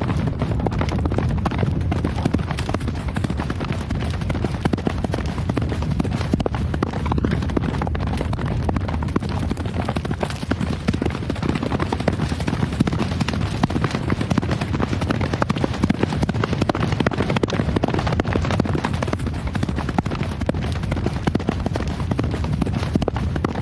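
Horse hooves galloping, a dense, steady run of hoofbeats without a break.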